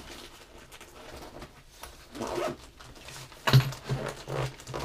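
Zipper on a soft-sided fishing worm bag being pulled closed in a few short rasping strokes, most of them in the second half and the first of those the loudest.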